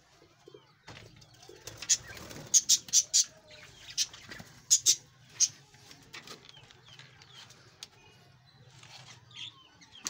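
A flock of budgerigars in an aviary: short, sharp chirps and wing flutters, loudest in a cluster from about two to five and a half seconds in, then quieter chatter.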